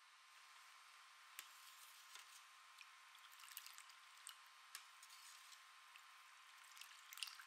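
Faint drips and ticks of tea being ladled up and poured back into a saucepan from a height, over a low hiss and a thin steady tone. There is a cluster of sharper clicks near the end.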